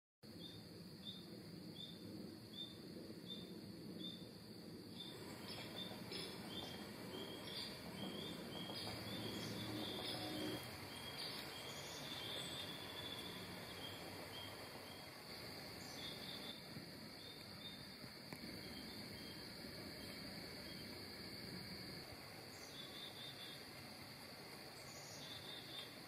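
Autumn forest ambience: crickets keep up a steady high drone, with short chirps repeating about twice a second, and a few brief bird calls. A soft low rush swells and fades in the middle.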